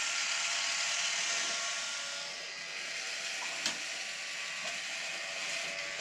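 Electric sawmill blade sharpener running steadily: a motor hum with a hiss over it, and one sharp click a little past halfway.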